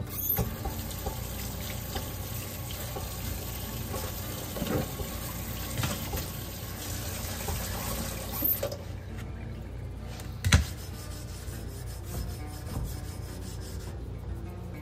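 Kitchen tap running onto a whetstone while a second stone is rubbed back and forth across its wet face, rinsing and working off swarf; the water shuts off about nine seconds in. A single sharp knock follows a little later.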